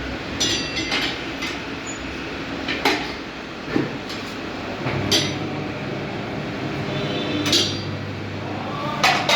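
Metal tools clinking and knocking on metal, about six separate strikes, some with a short ring, over a steady low hum.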